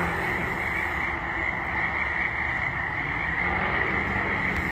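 A dense chorus of many frogs calling at once, a steady, unbroken wall of calls, loud and close.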